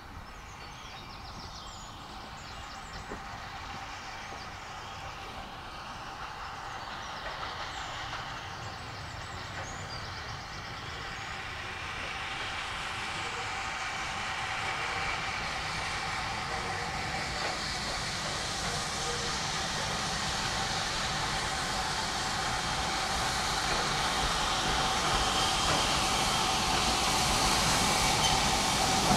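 Steam train approaching, getting steadily louder.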